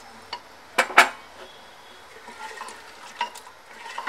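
A slotted spoon stirring bottle gourd and tomato pieces in water inside a pressure cooker pot, knocking against the pot with a few sharp clinks; the loudest pair comes about a second in.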